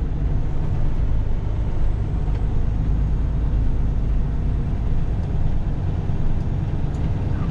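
Semi truck's diesel engine running with a steady low rumble and drone as the truck gets rolling.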